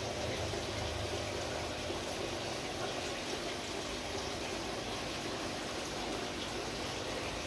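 Aquarium filter running: a steady trickle and splash of moving water with a faint hum underneath.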